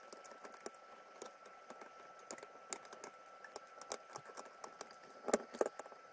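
Flush-cut side cutters snipping the excess component leads off the underside of a freshly soldered circuit board: a quick, irregular run of sharp little clicks, with a few louder snips a little past five seconds in.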